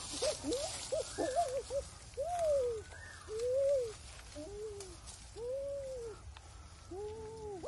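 A chicken caught in a trap calling over and over: quick short cries at first, then longer, slower calls that rise and fall.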